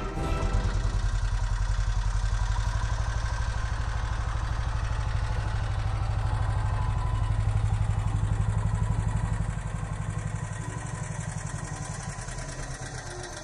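ATV (quad bike) engine running at low speed as the quad moves, a steady, fast-pulsing throb that dies down over the last few seconds.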